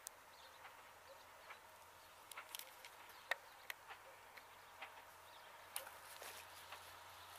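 Near silence: faint outdoor ambience with scattered sharp ticks. A faint low drone from a distant, approaching Class 68 diesel locomotive grows slightly toward the end.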